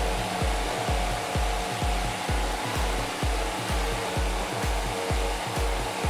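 Electric fan running, a steady rushing air noise, under background music with a steady thumping beat of about two beats a second.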